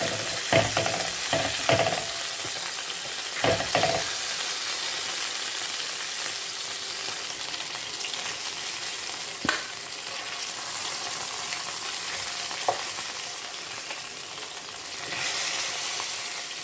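Chicken pieces sizzling in hot oil in a pan, just browned on high heat with the burner now off, with sharp knocks of a utensil against the pan, several in the first few seconds and a couple more later. The sizzle grows louder near the end.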